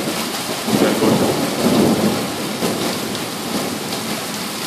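Thunder rumbling through over steady heavy rain; the rumble swells about a second in and dies away over the next second or so, leaving the rain hiss.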